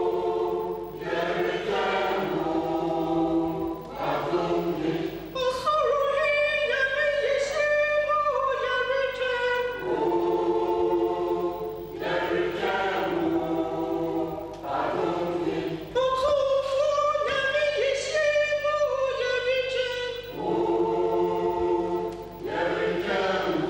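Mixed choir of women's and men's voices singing a gospel song in held, chord-like phrases, with short breaks between them.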